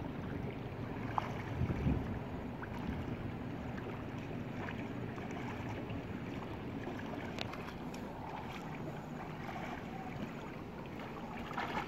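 Steady rushing of a flowing river, with a low rumble of wind on the microphone and a few faint small splashes as people wade and swim in the current.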